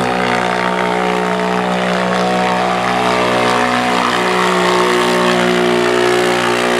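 ATV engine running steadily at high revs under heavy load as it drags a weight-transfer pulling sled.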